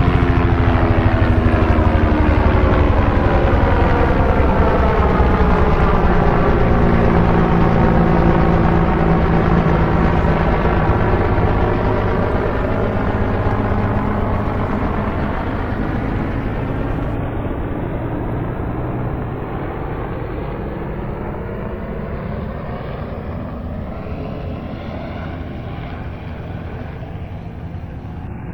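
Helicopter in flight, its rotor and engine loud at first, then the pitch sinks slowly and the sound fades as it moves away.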